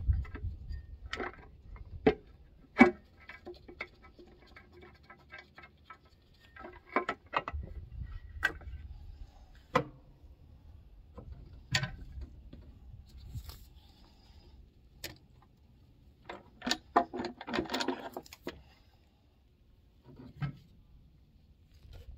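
Hand tools and bolts clinking and knocking on metal as the valve cover bolts are undone and the covers lifted off a Caterpillar 3406 diesel engine. Sharp metallic clicks and knocks come at irregular intervals, with a busier stretch of rattling later on.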